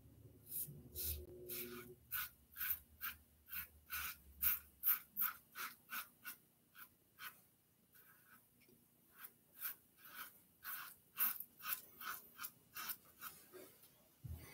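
Safety razor scraping through lathered stubble on the cheek and jaw in quick short strokes, about three a second, with a pause of about two seconds midway, on a cross-grain pass.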